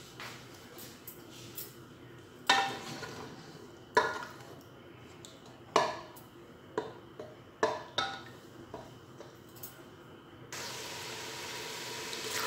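Wooden spoon stirring onion and garlic in oil in an aluminium pressure cooker, knocking against the pot about six times, each knock ringing briefly. About ten seconds in, a steady sizzle of the oil frying sets in suddenly.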